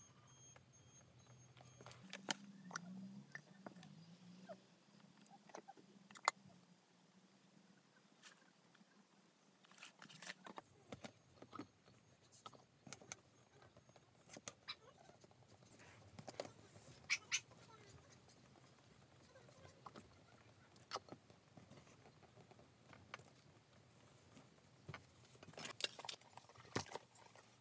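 Faint workbench handling sounds: scattered light clicks and taps as leather pieces and a plastic glue spreader are handled on a cutting mat. A low hum sits underneath.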